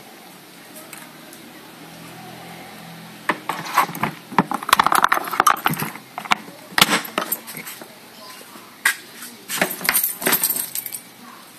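Irregular light clicks and rattles, like small metal objects jangling, starting about three seconds in and coming in clusters, with a faint low hum before them.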